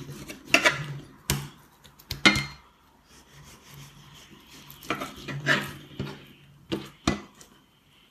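Chinese cleaver knocking and scraping against a bamboo cutting board as pork fillet is sliced and handled, with about a dozen short, irregular clacks.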